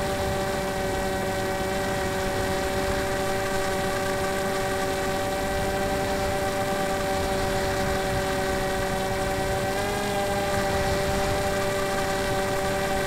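Electric brushless motor and pusher propeller of a Multiplex EasyStar RC plane in flight, running at a steady throttle setting as one even whine over a hiss of air. The whine rises slightly in pitch about ten seconds in.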